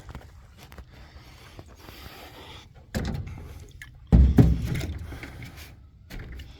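Water from a bucket splashing and sloshing into a jon boat's hull during a leak test, with two heavy splashes about three and four seconds in, the second louder, each dying away over about a second.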